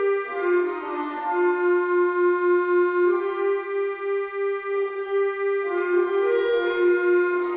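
Instrumental background music: a slow melody of long held notes.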